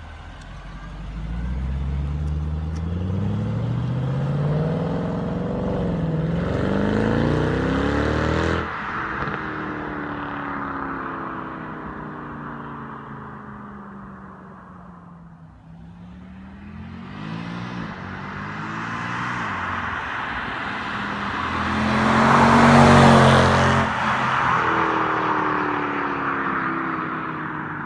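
Mercedes-Benz C63 AMG on its stock exhaust accelerating hard, the engine note rising in steps through the gears and then cutting off suddenly about eight and a half seconds in and fading away. Later the car accelerates again and drives past, loudest a little over twenty seconds in, its note dropping as it pulls away.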